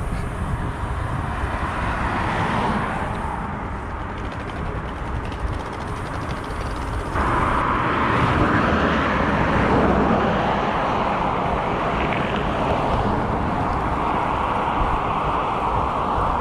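Wind rushing over the microphone and traffic noise while riding a bicycle fast along a city road. It grows louder about seven seconds in.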